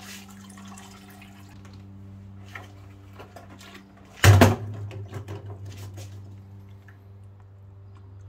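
Dirty water sloshing and dripping in the plastic collection tank of a Kärcher spray extractor as the tank is handled and lifted out. There is one loud plastic clunk with a splash about four seconds in, over a steady low hum.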